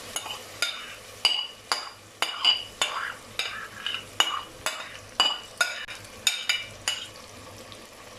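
Metal spoon stirring in a pressure cooker, clinking against the pot about twice a second with a short metallic ring, as soaked lentils are mixed into the frying masala, with a faint sizzle underneath.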